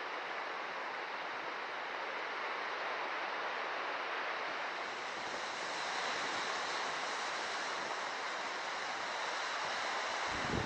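Steady rushing of sea waves washing against the rocky shore, swelling slightly about halfway through.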